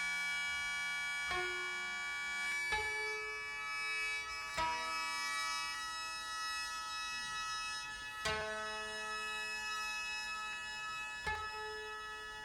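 A shō, the Japanese bamboo mouth organ, holds a steady chord of many tones while a 13-string koto plucks single notes five times, each note ringing and fading. This is slow, quiet Kibigaku court music for shō and koto.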